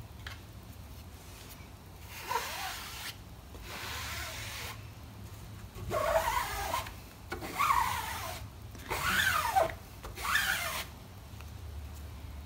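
Plastic squeegee dragged hard across an ink-loaded silk-screen mesh, six scraping strokes of about a second each with a squeak that slides up and down in pitch, pushing fabric ink through the screen onto a cotton tote bag.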